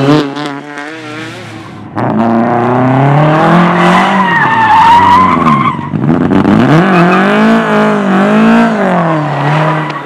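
Classic Lada saloon four-cylinder engines revving hard, the pitch climbing and dropping again and again under throttle and gear changes. Tyres squeal through a slide around the middle.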